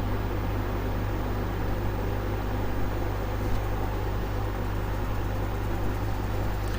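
Steady low hum with an even hiss of background noise, unchanging throughout; no distinct sound events.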